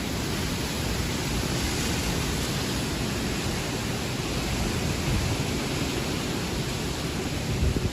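Steady rushing noise of hurricane wind blowing across the microphone, with no pauses or separate impacts.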